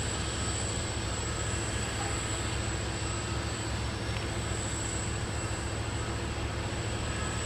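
Steady jet aircraft engine noise at an airport: a low rumble with a thin, steady high whine over it.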